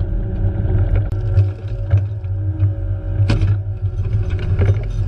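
Excavator engine running steadily at a low hum, with a few sharp knocks about three and four and a half seconds in.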